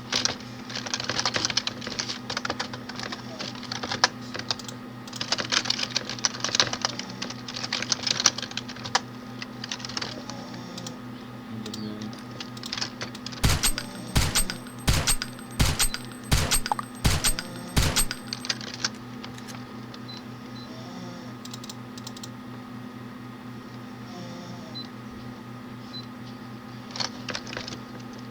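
Bursts of fast clicking and tapping over a steady low hum, with a run of about ten sharper, evenly spaced clicks about halfway through.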